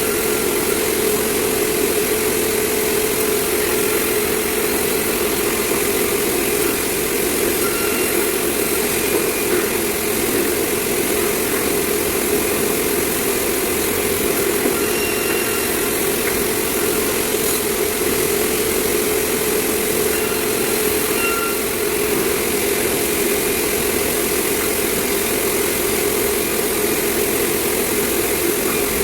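Sawmill machinery running steadily: a constant loud, engine-like drone that does not break or change.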